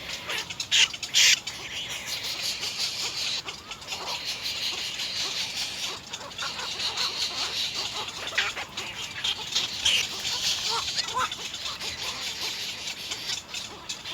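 Little egret nestlings begging to be fed: a continuous harsh chatter of calls, with two loud squawks about a second in.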